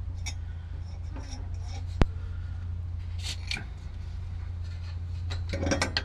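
Small clicks, rustling and rubbing of hands working a plastic air line into a fitting on a compressor air tank, with one sharp click about two seconds in, over a steady low hum.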